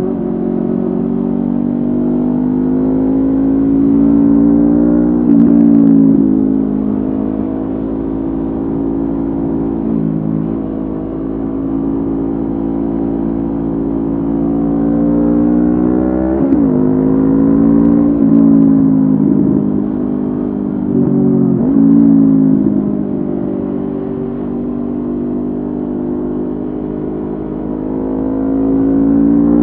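Honda CB500F's 471 cc parallel-twin engine through a Mivv GP Pro aftermarket exhaust, running under way at fairly steady revs. The pitch dips and climbs sharply a few times as revs change.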